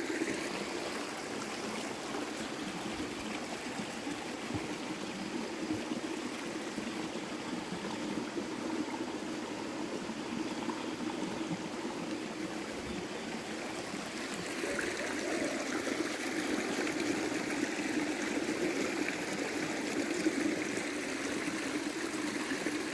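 Shallow rocky stream trickling steadily over stones, a little louder in the second half.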